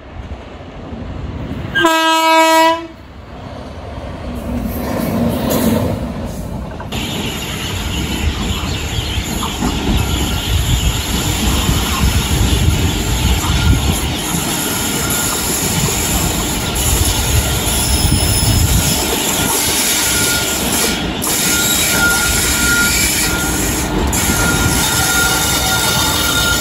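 A train horn sounds one pitched blast, just under a second long, followed by the building rumble of an approaching train. An Indian Railways WAP-4 electric locomotive then hauls a passenger express into a station, its wheels rumbling steadily on the rails, with a thin high squeal from the wheels in the last several seconds.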